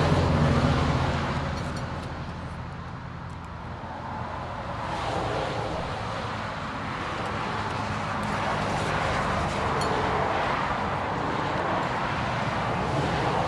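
A motor vehicle engine running close by, loudest in the first second and then fading. It gives way to a steady rush of road-vehicle noise that swells twice.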